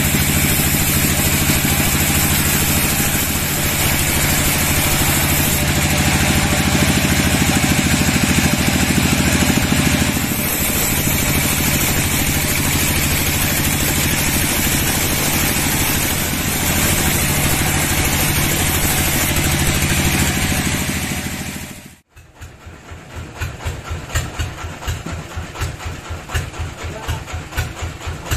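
Sawmill bandsaw cutting along a dry teak log: a loud, steady mechanical run with a low hum. About 22 seconds in it cuts off abruptly, and a quieter engine idling with an even pulsing beat follows.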